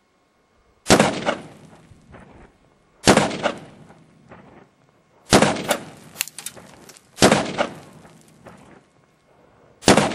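.223 rifle firing five single shots about two seconds apart, each a sharp crack followed by a trailing echo.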